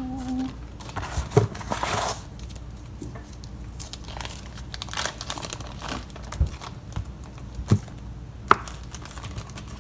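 Clear plastic oven bag and a butter stick's paper wrapper crinkling and rustling as butter is handled with a kitchen knife, with a few sharp knocks along the way.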